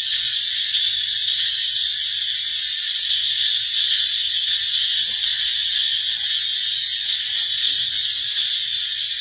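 A steady, high-pitched insect drone, the unbroken buzz of a cicada-like chorus, holding at one level throughout.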